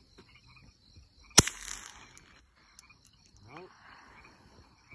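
A single 9mm gunshot about a second and a half in, a sharp crack with a short echo trailing off. Crickets chirp steadily underneath.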